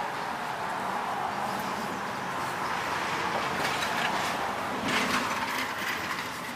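Scraping and rustling as packed grass is cleared by hand from a lawn mower's self-propel drive under its cover, busiest about three and a half to five and a half seconds in, over a steady background noise.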